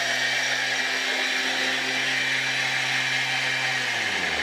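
Thermomix food processor running its blades at high speed, grinding rolled oats into flour: a steady motor hum with a rushing hiss. Near the end the motor winds down and the hum drops in pitch.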